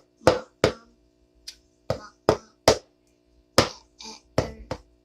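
About ten sharp taps or knocks at uneven spacing, several coming close together near the end, over a faint steady hum.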